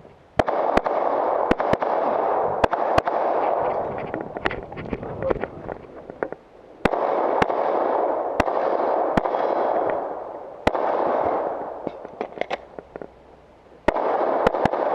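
Rapid pistol fire during a defensive-pistol course of fire: shots come in uneven strings of two or more, with pauses between. Each string brings a loud noisy rush that fades away over a few seconds.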